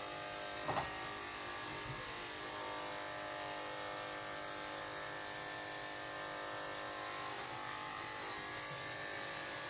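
Electric grooming clippers running with a steady buzz.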